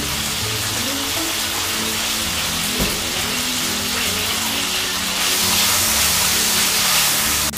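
Chicken pieces sizzling in hot oil in a kadhai, the sizzle growing louder about five seconds in as they are stirred with a wooden spatula. Background music plays underneath.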